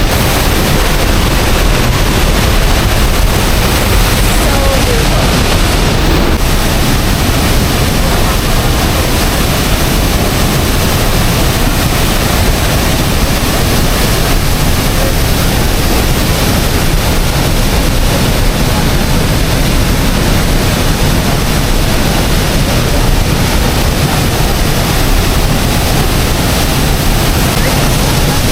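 Loud, steady rushing of falling water from a waterfall close to the microphone.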